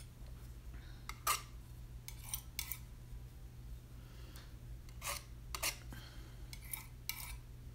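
Metal palette knife scraping and tapping in a paint palette while it is loaded with watercolour: about seven short, faint scrapes and clicks, separated by pauses.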